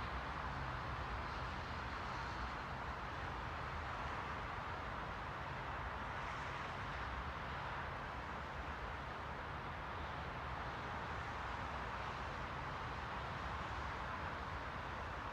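Continuous white noise: an even, unchanging hiss, strongest in the middle range, with a low hum beneath it.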